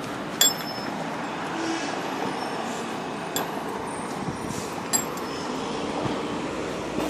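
Steady outdoor background noise like distant traffic, with three short, sharp clinks about half a second, three and a half and five seconds in.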